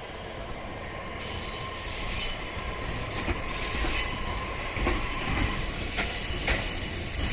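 E531 series train rolling slowly past, getting louder from about a second in, with high wheel squeal and sharp clacks of the wheels over rail joints several times.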